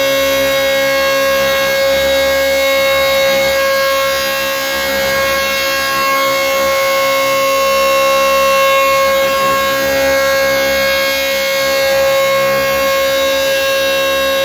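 Restored Elektror S2a civil-defence siren sounding one steady tone at constant pitch, with no rise and fall: the continuous all-clear (Entwarnung) signal rather than the wailing air-raid alarm.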